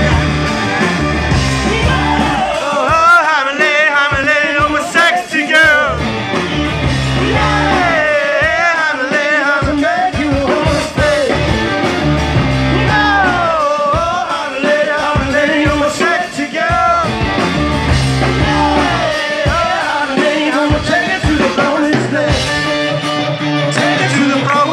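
A hard rock band playing live at full volume: distorted electric guitar, bass and drums, recorded from the audience.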